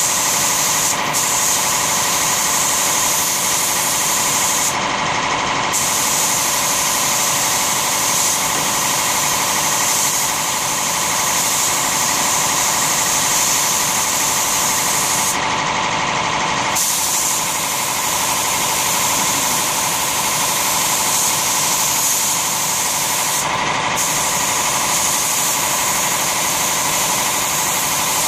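Compressed-air spray gun hissing as it sprays finish onto wood, over a steady machine hum. The spray hiss breaks off briefly three times, when the trigger is let go.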